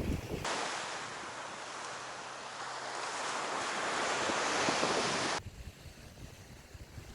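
Sea waves washing in: an even rushing that swells toward a peak about five seconds in, then cuts off abruptly. Gusty wind rumbles on the microphone before and after it.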